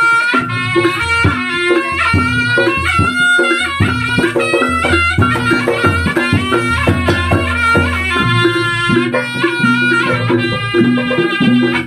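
Javanese reog accompaniment music: a reedy wind-instrument melody moving quickly from note to note over drums and deep sustained low notes.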